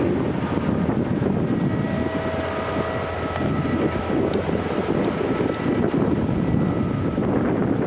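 Heavy construction machinery running steadily with faint whining tones over a low rumble, mixed with wind buffeting the microphone.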